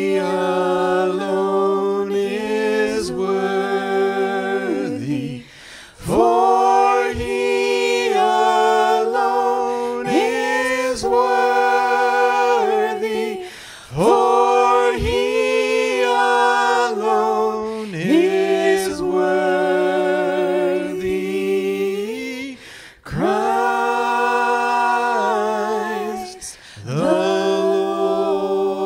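Church congregation singing a closing song, led by two singers at microphones, in long held phrases with short breaks between lines.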